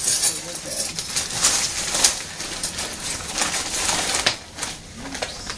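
Cloth rustling and rubbing against the camera microphone as the camera is handled, with irregular soft knocks.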